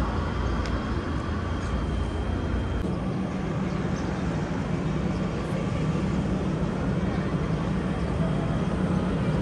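Steady city street traffic noise with a low engine drone that settles into a steadier hum about three seconds in. A faint high steady tone stops at about the same moment.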